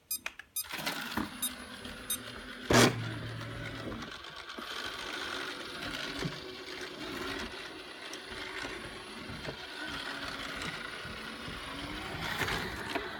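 iLife robot vacuum starting up after its clean button is pressed: a few clicks at first, a short loud sound with a low hum about three seconds in, then its motors and brushes running steadily.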